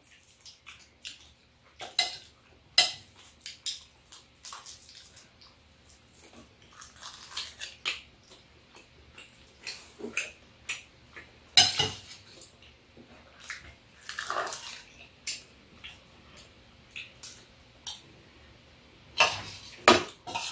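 Metal spoons and chopsticks clinking and scraping against a stainless steel bowl and metal tray during a meal. The clinks come irregularly, with a few sharper knocks among them.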